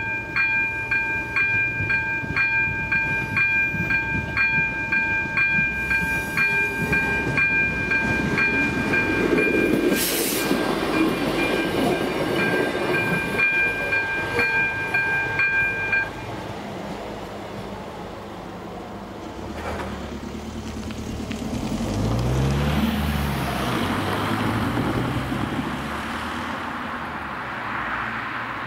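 Electronic warning bell of AŽD 97 level-crossing signals ringing at about two strikes a second over the rumble and clatter of a passing train, loudest about ten seconds in. The bell stops suddenly about 16 seconds in as the crossing clears, and a road vehicle's engine is heard approaching towards the end.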